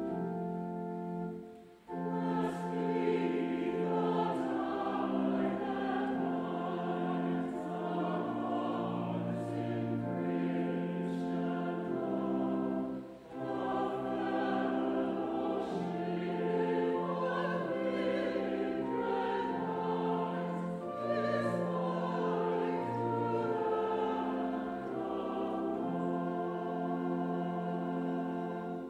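Choir singing slow held chords with sustained instrumental accompaniment, in two phrases with a brief break between them about halfway.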